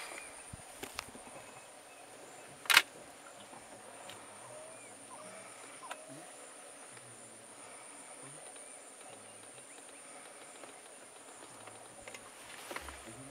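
Steady high-pitched chirring of insects in a marsh, with a single sharp, loud crack about two and a half seconds in and a few faint short chirps.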